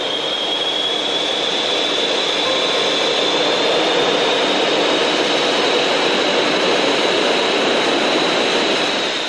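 A MiG-29's twin Klimov RD-33 turbofan engines running as a loud, steady jet roar with a high whine, which rises slightly over the first few seconds and then holds.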